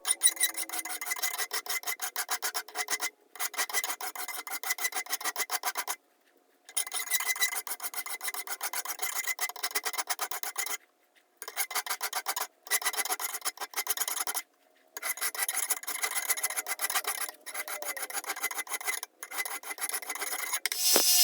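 A file scraping over the steel handles of a pair of lineman's pliers in quick back-and-forth strokes, filing down casting marks. The strokes come in runs broken by several brief silent gaps.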